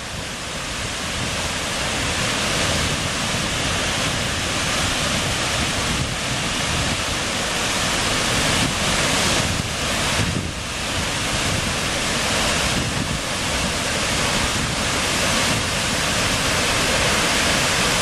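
Kama Merú waterfall in full rainy-season flow: a steady rush of heavy falling water.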